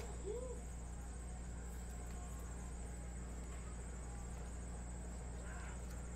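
Steady low electrical hum and hiss of room tone, with a faint brief pitched sound about a third of a second in.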